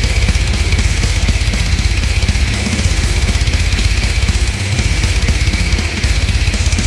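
Heavy metal music: dense distorted guitars over fast, driving drums with a heavy kick drum.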